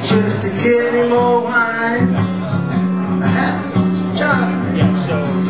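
A man singing into a microphone while strumming an acoustic guitar.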